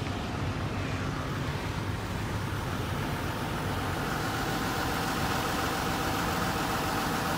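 A vehicle engine idling steadily, with a faint higher whine joining about halfway through.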